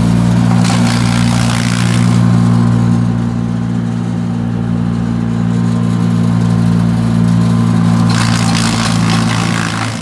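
Wood chipper's engine running steadily at working speed while the chipper shreds green corn stalks and ears into silage, the shredding louder about a second in and again near the end.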